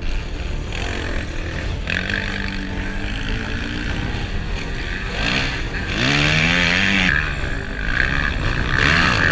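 Motocross dirt bikes passing close one after another through a corner. Their engines rev up and down in pitch, loudest about six seconds in and again near the end.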